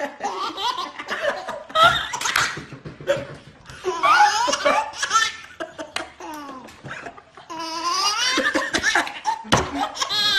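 A baby laughing, his first laugh, together with a man's hearty laughter. The laughter comes in repeated bursts with a short lull about six seconds in, then rises again with high squeals.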